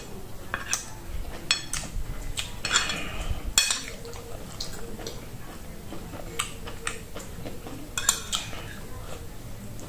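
Metal fork clinking and scraping against a ceramic plate of rice, in a dozen or so irregular short clinks as food is scooped up.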